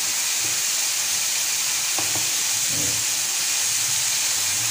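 Grated onion and garlic sizzling in oil in a hot grill pan, a steady hiss, with a wooden spoon scraping through it a couple of times about two seconds in.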